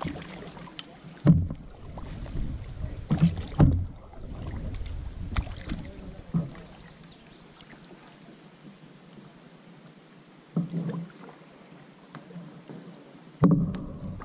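A kayak being paddled on calm water: paddle strokes splashing and dripping, with several dull thumps against the hull. The loudest thumps come about a second in and near the end.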